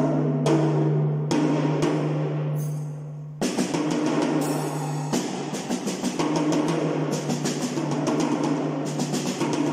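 PDP drum kit played with sticks: a few separate tom strokes that ring on with a low steady tone, then, about a third of the way in, a fast run of strokes across the drums with a cymbal wash over it, followed by more hits.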